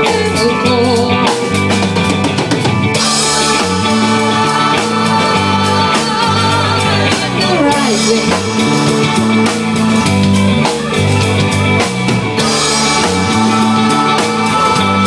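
Live rock band playing: drum kit, electric guitar, bass guitar and keyboards, the drums keeping a steady beat. Cymbals ring out for a couple of seconds about three seconds in and again near the end.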